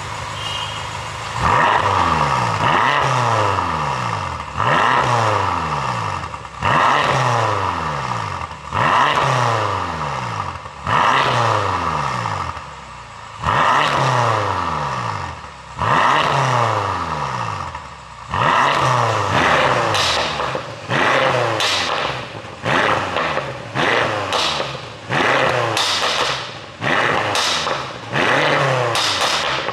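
BMW F10 M5's 4.4-litre twin-turbo V8 being blipped over and over, each rev rising sharply and then falling away. Popping and crackling comes from the exhaust on the overrun, the effect of an ECU tune. The blips come about every two seconds at first, then quicker, about once a second, in the second half.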